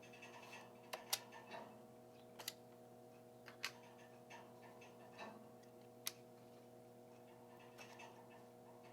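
Near silence over a steady low electrical hum, broken by about half a dozen faint, sharp clicks in the first six seconds: small plastic and metal parts of a laptop being handled at the opened RAM compartment.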